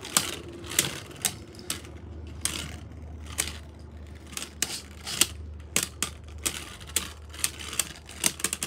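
Two Beyblade Burst Pro Series tops, one of them Brave Valtryek, spinning in a plastic stadium: a steady low whir broken by sharp clacks as they collide again and again, the hits coming thick and fast near the end.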